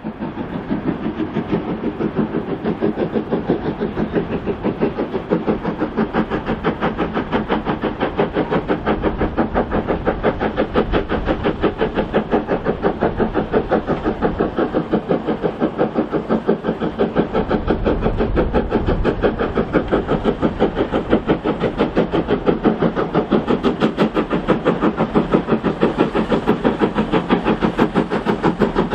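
Taff Vale Railway Class 02 No. 85, an 0-6-2 tank steam locomotive, hauling a loaded goods train: a steady, even rhythm of exhaust beats from its chimney as it works under load. The sound fades in at the start.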